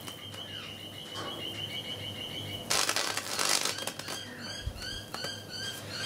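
Microwave oven transformer high-voltage rig humming steadily, with a loud burst of hissing crackle about three seconds in as the probe arcs to earth through the soil. Short chirps repeat quickly after it.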